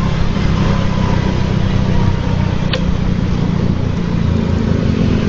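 Motor scooter engine running steadily at cruising speed, heard from the rider's seat under a steady rush of wind and road noise. A single short click a little under three seconds in.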